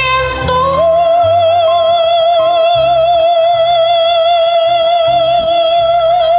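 Live ranchera song: a woman singing into a microphone holds one long high note with vibrato for about five seconds, after a few shorter notes. A violin and a plodding bass line accompany her.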